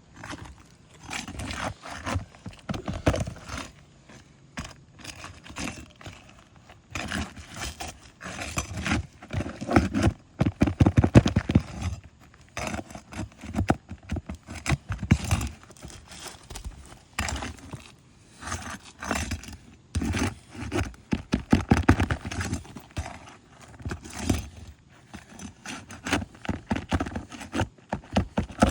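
Steel roofing flat bar prying roofing nails out from under asphalt shingles: irregular bursts of scraping and knocking, metal against the gritty shingle surface.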